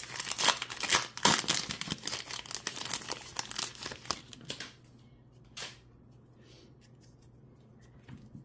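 A foil trading-card booster pack being torn open and crinkled, a dense crackle for the first four and a half seconds. Then it goes much quieter, with one sharp tick about five and a half seconds in and a few faint clicks of cards being handled.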